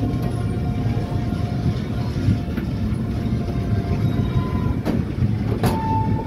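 Train running along the track, heard from on board the moving coach: a steady low rumble of wheels on rails, with two sharp clacks a little after the middle.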